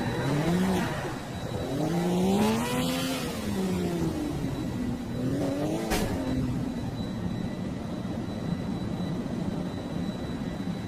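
Revving car-engine sounds that rise and fall in pitch, with a sharp click about six seconds in.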